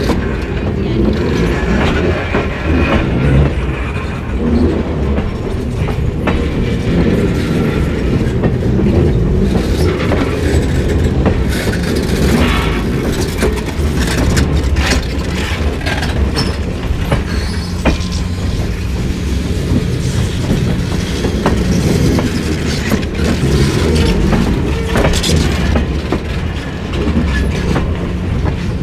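Railroad passenger cars rolling past close by: a steady rumble of steel wheels on rail, with irregular clicks and clanks as the trucks cross rail joints.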